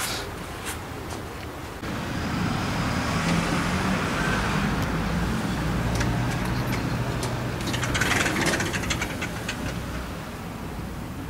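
A motor vehicle passing by, its engine hum and road noise swelling for several seconds and then fading. A few light clicks near the end.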